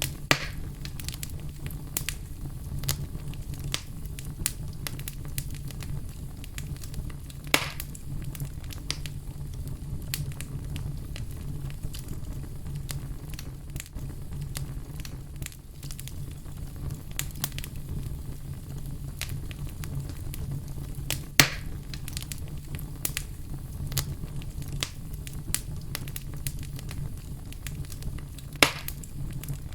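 Wood fire burning with a steady low rumble and constant small crackles, broken by a few louder pops of the burning wood: one near the start, one about a quarter of the way in, one about two-thirds in and one near the end.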